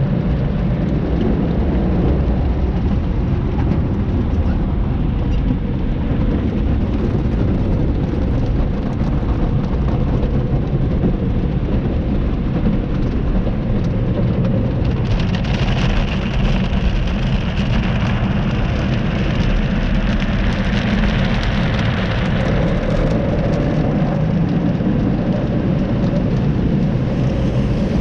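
Tunnel car wash heard from inside the car: big spinning wash brushes scrubbing and slapping over the windshield and body, with water spraying, a steady heavy rumble. About halfway through, a brighter hiss joins in for several seconds.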